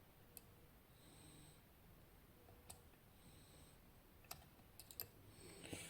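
Faint, sparse clicks of a lock pick working the pins of a West 955 two-row, 15-pin lock under turning tension: single clicks spaced a second or two apart, then a quick cluster of clicks near the end.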